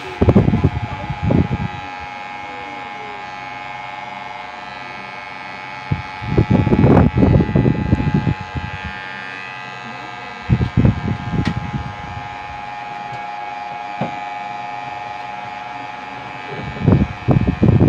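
Electric hair clipper running with a steady buzzing hum while it trims a boy's hair, broken by louder rough passages near the start, for a couple of seconds about six seconds in, again around eleven seconds, and near the end.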